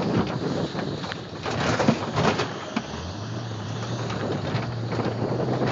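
Wind buffeting the microphone over the running engine of a vehicle towing an inflatable tube across a bumpy field, with a low steady engine hum that settles in about three seconds in.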